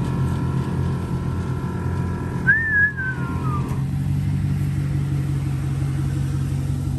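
Chevy pickup's engine idling steadily, with a steady higher whine over it that stops about four seconds in. A short whistle falling in pitch sounds about two and a half seconds in.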